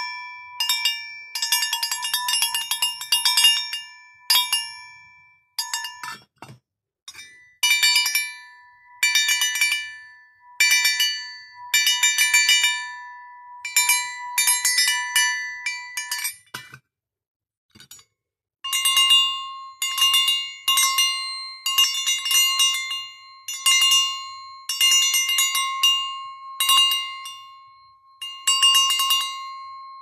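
Handmade sheet-bronze bird dog bells shaken by hand, the clapper striking in quick runs that ring out after each shake. After a short pause a little past halfway, a second bell with a slightly different ring is shaken.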